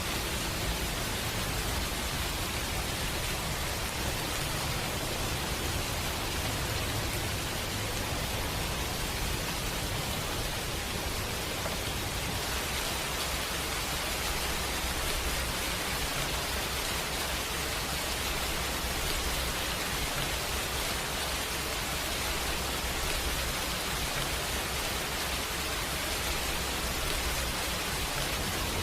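Steady rain falling: an even, unbroken hiss with a soft low rumble beneath.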